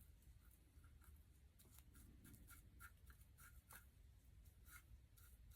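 Near silence with faint, irregular light scratching and ticking from small hand crafting work, paper pieces being laid and pressed onto a stapler for decoupage.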